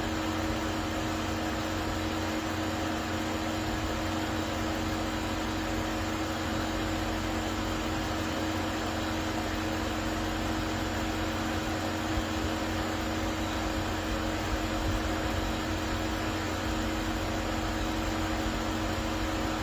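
Steady hum of an idling car engine: two low, even tones over a hiss, without change.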